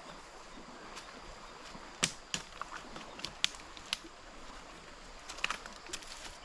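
Scattered short, sharp clicks and knocks, irregularly spaced and bunched in two clusters, over a faint steady background.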